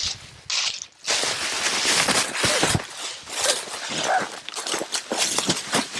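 Footsteps crunching and rustling through dry leaves and brush, many short crackling strokes, starting about a second in.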